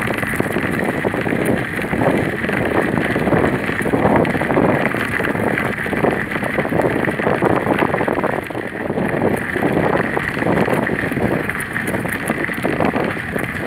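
Wind buffeting the microphone of a handheld camera on a moving bicycle: a rushing noise that surges and eases unevenly.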